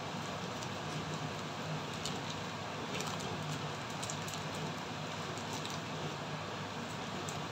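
Shredded cabbage, bacon and carrot sizzling in a frying pan on a gas burner: a steady hiss with scattered small crackles, over a low steady hum.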